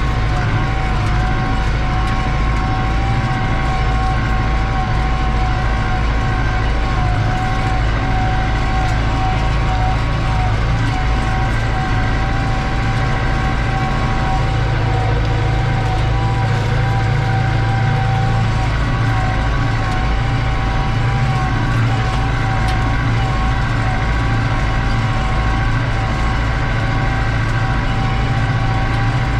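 New Holland TD85 tractor's turbocharged diesel engine running steadily under load, heard from inside the cab while it pulls a disc harrow through ploughed ground. A steady turbo whistle sits over the low engine drone.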